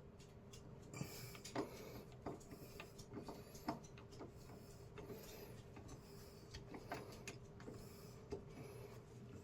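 Faint, irregular small clicks and light knocks of a new duplex wall switch and its wiring being worked into a metal wall box by hand, over a faint steady hum.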